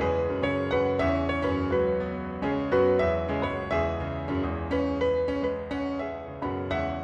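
Computer-generated piano music, a real-time sonification of the passing scenery: single notes and chords struck about twice a second at an uneven pace, each ringing and fading.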